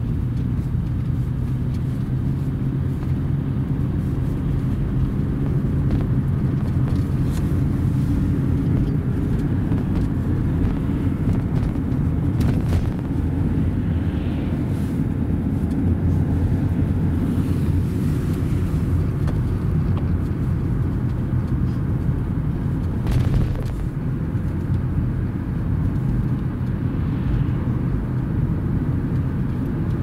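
Car driving, heard from inside the cabin: a steady low rumble of engine and tyres on the road, with a few brief knocks, the loudest about two thirds of the way through.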